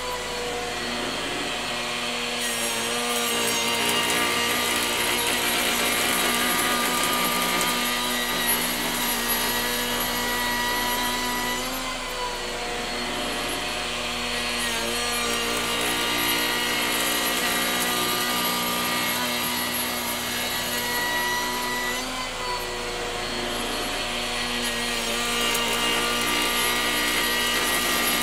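Skil 14-amp router spinning a 2-inch flattening bit, running steadily as it is passed back and forth across a board on a router sled, surfacing it flat. Its whine sags briefly in pitch about three times, near the start, about midway and later on.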